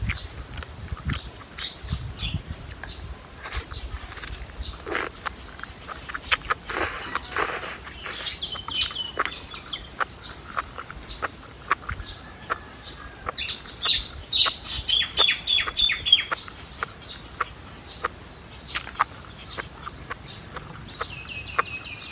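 Close-miked eating sounds from enoki mushrooms being slurped and chewed: many short wet mouth clicks and smacks. Birds chirp in the background, in short runs of falling notes about a third of the way in, around the middle, and near the end.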